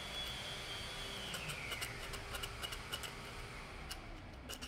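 A rolled-up strip of sandpaper twisted and rubbed inside a drilled hole in a small wooden board, widening the hole for a dowel: a soft, faint scratching, with a few light clicks near the end.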